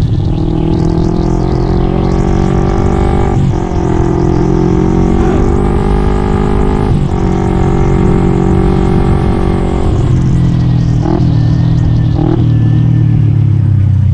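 Yamaha Mio scooter with a swapped-in Kawasaki Ninja 150 two-stroke engine, accelerating on the move. The engine note climbs, breaks and drops at each gear change, three times, then runs steadier near the end.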